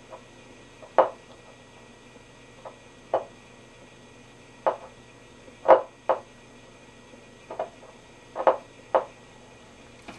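Short, irregular bursts of static, about ten of them, from the speaker of a Grunow 1191 tube radio as its dial is turned with no antenna connected, over a faint low steady hum. The bursts are taken for stations being reached whose audio does not come through, which the restorer suspects points to a fault in the IF stages or the detector.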